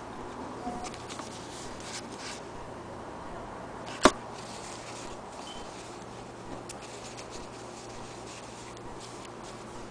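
Steady faint background hum with a single sharp click about four seconds in and a few faint ticks, as the machine and fabric are handled.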